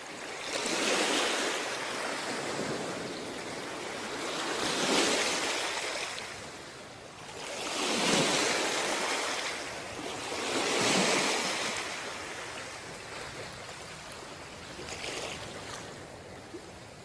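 Sea waves washing onto a beach, in surges that swell and fade about every three to four seconds, with a weaker one near the end.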